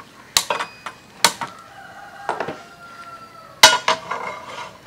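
Metal clanks and clinks of a frying pan being handled and set down on a gas stove's pan support, a few irregular knocks with the loudest near the end. Chickens call faintly in the background.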